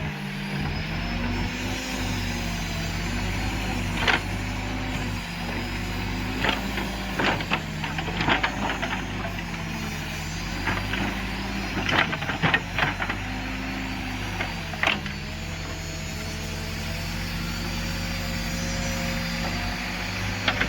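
Backhoe loader's diesel engine running, its pitch sagging and recovering several times as it works under hydraulic load. Sharp knocks and clanks come in several clusters.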